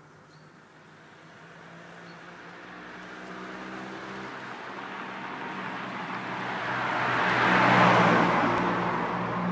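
A road vehicle approaching and passing by: engine and tyre noise build steadily to a peak about eight seconds in, then begin to fade.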